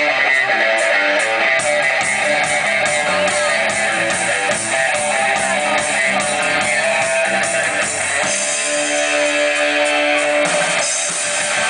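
Live rock band playing an instrumental passage: electric guitars over bass and drums.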